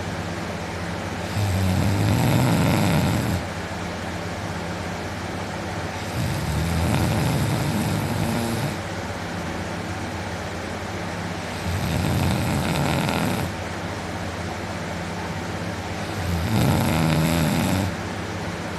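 A man deep asleep on his back snoring: four long, rattling snores, each about two seconds, coming roughly every five seconds over a steady low hum.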